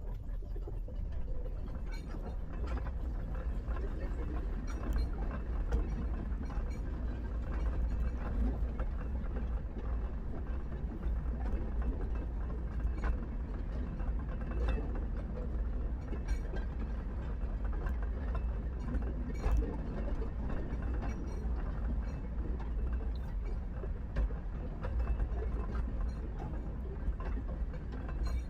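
Small narrow gauge train running, with irregular rattling and clicking from the wheels and carriages over a continuous low rumble.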